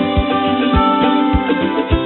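Background music with a steady beat, about one beat every 0.6 s, under held pitched notes.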